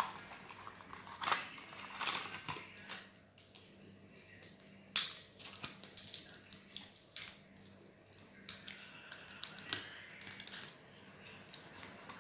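Thin plastic packaging being unwrapped and handled by hand: irregular crinkling and rustling in short bursts, with small clicks and taps against the table.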